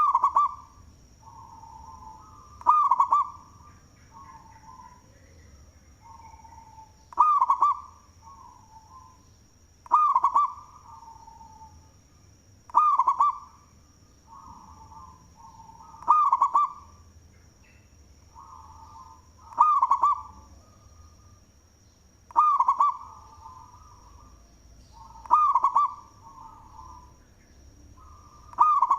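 Local zebra dove (perkutut) cooing with a big voice: loud coo phrases repeat about every three seconds, with quieter coo notes between them.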